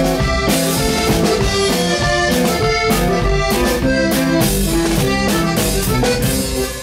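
Live band music, with a drum kit beating a steady rhythm under a sustained melody. The sound dips briefly near the end.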